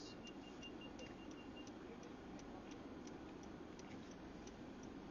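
Faint, regular ticking, about three ticks a second, inside a stopped car. A faint steady high tone runs under it for the first second and a half.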